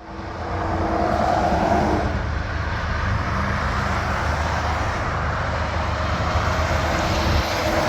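A steady engine rumble from a vehicle, fading in at the start.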